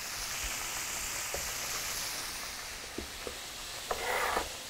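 Food frying in hot oil: a steady sizzle, fullest over the first couple of seconds and then easing. A few light clicks and a short scraping rustle about four seconds in.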